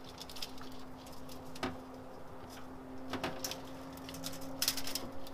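Sparse light clicks and taps as head gaskets are worked down over the head studs on an LS engine block, a few scattered hand-handling sounds over a steady faint hum.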